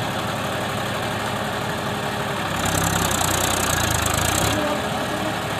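Massey Ferguson 241 DI three-cylinder diesel tractor engine running under load while its rear wheel spins in loose sand to dig itself in. The engine grows louder for about two seconds in the middle.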